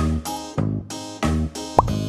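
Playful background music with a bouncy, evenly paced beat of short pitched notes, and a short rising swoop near the end.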